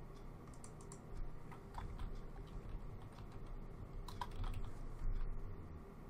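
Scattered, faint keystrokes and clicks on a computer keyboard and mouse, irregularly spaced, over a low steady hum.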